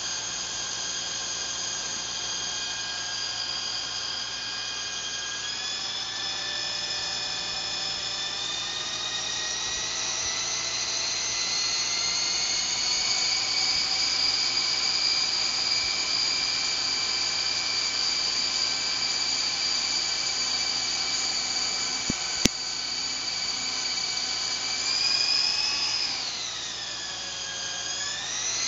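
A high-pitched motor whining steadily with several tones at once, its pitch creeping up over the first half. Near the end the pitch sags and then climbs back, as if briefly loaded. Two sharp clicks come about three-quarters of the way through.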